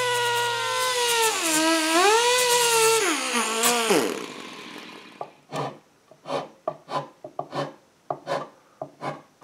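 Electric disc sander whining against a wooden table leg, its pitch dipping as it is pressed in under load, then switched off and winding down three to four seconds in. After that comes a quick run of short rubbing strokes as the wood is sanded by hand.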